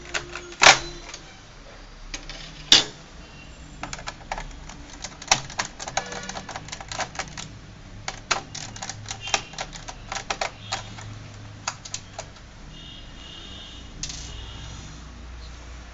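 Precision screwdriver backing out the screws in the plastic base of a Dell Inspiron 15R laptop: an irregular run of small clicks and ticks, with two sharper clicks about a second and three seconds in.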